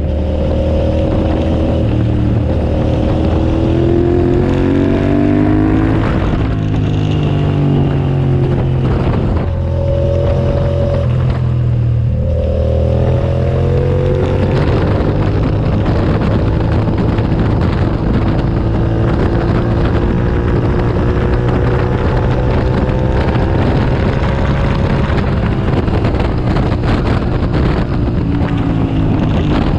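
2007 Suzuki SV650S's V-twin engine at racing speed. The pitch climbs and drops sharply several times in the first half, then climbs slowly in one long pull and falls again near the end.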